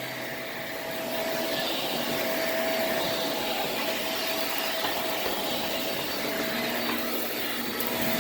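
Shark Navigator upright vacuum cleaner running steadily, an even rushing hum with a thin constant whine.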